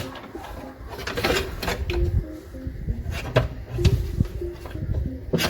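Scattered sharp clicks and knocks with a few dull thuds, from handling the plastic and metal inner door plate and parts during car door reassembly.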